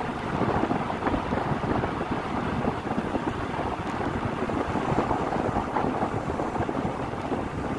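Wind buffeting the microphone of a moving bicycle rider: a steady, fluttering rush of noise.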